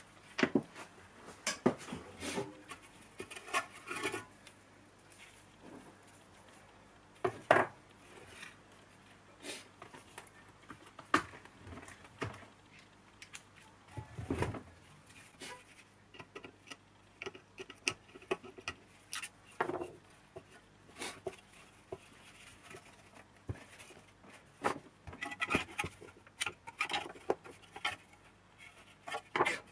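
Irregular clinks, knocks and scrapes of the rusty metal parts of a Lotus Elise S1 heater blower being handled and set down on a wooden workbench as it is taken apart.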